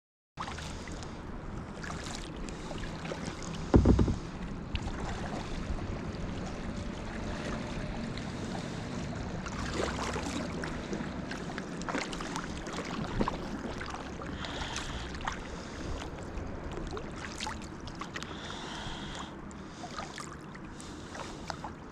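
Kayak paddling on a river: paddle blades dipping and splashing, water dripping and lapping against the hull, with a louder knock about four seconds in.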